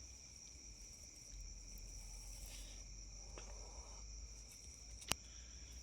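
Insects droning steadily at a high pitch, with one sharp click about five seconds in.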